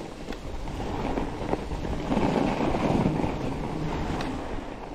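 Wind rushing over the microphone, with a fat bike's tyres rolling on groomed snow. It grows louder about two seconds in as the bike gathers speed.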